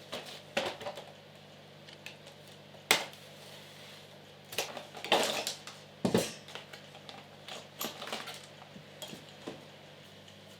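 Hard objects clinking and knocking as they are handled, in a run of irregular sharp clicks, the loudest about three seconds in and again around five to six seconds. A steady low hum underneath.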